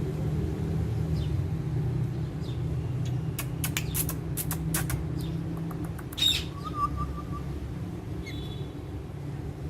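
Parrot chirping, with one loud, short call about six seconds in followed by a brief trill, over a steady low rumble. A quick run of sharp clicks comes a little after three seconds in.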